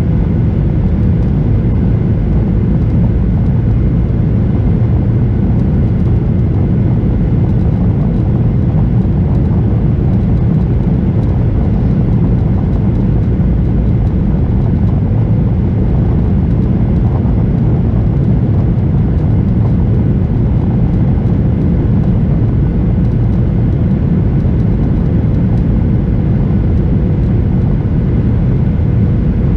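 Boeing 737-800 cabin noise on final approach with flaps extended: the CFM56-7B engines and rushing airflow make a loud, steady rumble, with a faint steady hum above it.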